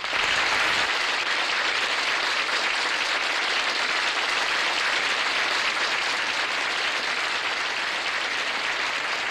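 Studio audience applauding steadily, a sustained round of clapping that begins suddenly and eases off slightly near the end.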